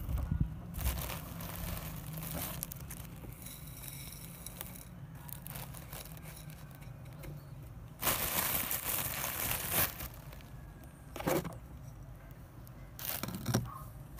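A plastic bag crinkling and seed pouring into a terracotta dish, in a few rustling bursts; the longest lasts about two seconds and comes about eight seconds in, with shorter ones later.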